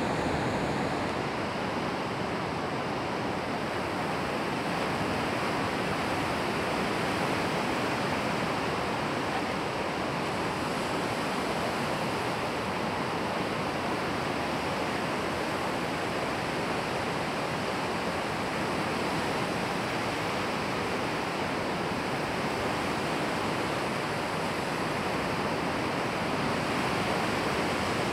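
Ocean surf breaking and washing ashore, a steady, even rush of noise with no distinct crashes standing out.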